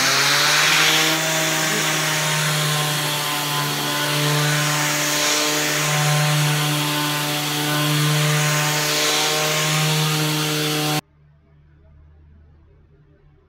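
Random orbital sander running over a wooden tabletop with a shop vacuum extracting dust through a hose on the sander: a steady motor hum under a loud rushing hiss. It cuts off suddenly about eleven seconds in.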